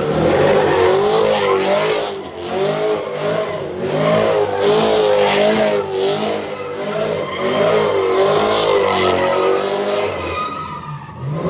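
Chevrolet Camaro doing donuts: the engine is held at high revs, its pitch wavering up and down as the car circles, while the spinning rear tires screech. The revs ease off near the end.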